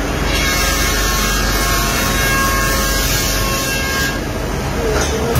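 Shoe-factory machinery running: a steady, even hiss and hum with a few faint steady tones.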